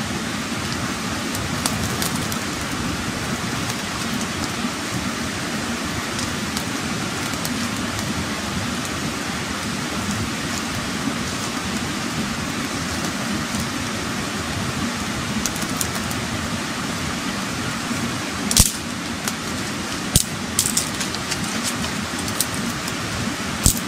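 Smoking wood campfire crackling over a steady rushing hiss, with a few sharp snaps and pops in the last several seconds.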